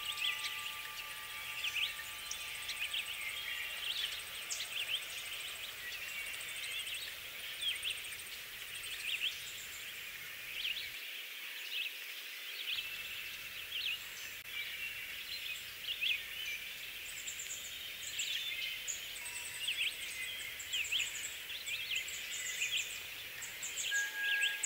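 A chorus of songbirds: many short chirps overlapping with bursts of fast, high trills, over a steady hiss.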